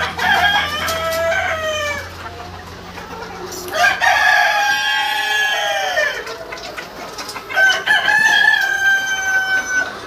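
Australorp rooster crowing three times, each crow a long call of about two seconds.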